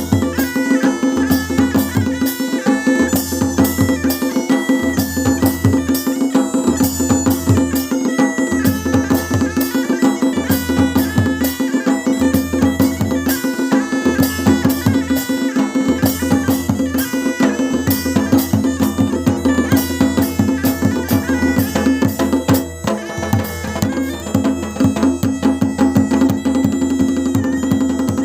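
Masakbeen (Kumauni bagpipe) playing a folk melody over its steady drone, with dhol and damau drums beating a dense rhythm. The playing thins briefly about three-quarters of the way through, then carries on.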